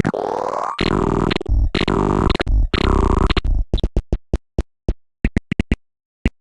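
Synthesizer MIDI music, a rendition of an HTC Hero phone ringtone: a rising sweep into three long held chords, then a run of short staccato hits that stops shortly before the end.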